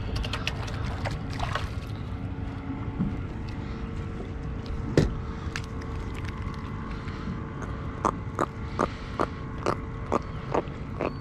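A landed jack crevalle grunting in a run of short croaks, about two or three a second, in the second half, over a steady rumble of wind and water. There are a few clicks of handling early on and one sharp knock about halfway.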